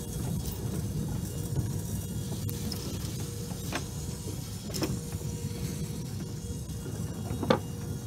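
Small 2-foot-gauge electric steeple-cab locomotive running along the track: a steady low rumble of wheels and running gear with a faint steady hum, and a few sharp clicks, the loudest near the end.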